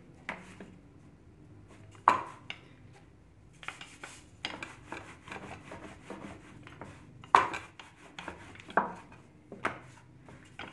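Wooden rolling pin rolling out a roti on a wooden board, with quick light rubbing and ticking as the dough is rolled and turned. Sharp wooden knocks now and then, the loudest about 2 s and 7.5 s in.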